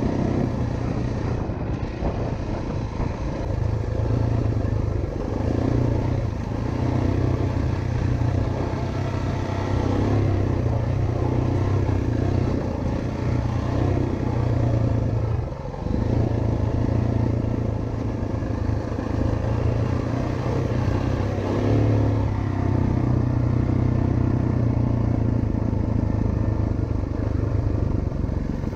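Single-cylinder four-stroke dirt bike engine running steadily while being ridden, with mild rises and falls in throttle. The engine note briefly drops once, about halfway through.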